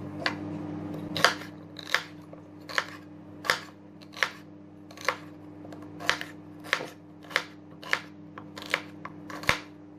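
Chef's knife chopping celery on a chopping board: a steady run of sharp knocks as the blade strikes the board, about three every two seconds.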